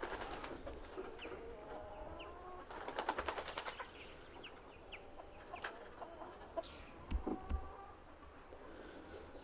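Domestic hens clucking quietly, with a short run of rapid clicks about three seconds in and a few dull knocks later on.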